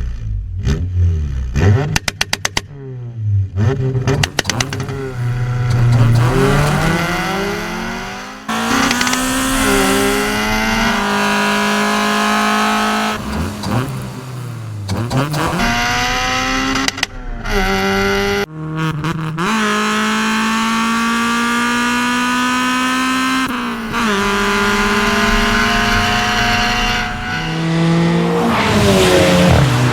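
Race car engine sound effect laid over the race: revving several times, then accelerating up through the gears, the pitch climbing and dropping sharply at each shift about every five seconds.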